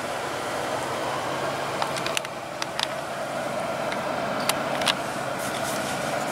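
Steady hum and air noise inside a parked car's cabin, with a few light clicks around the middle.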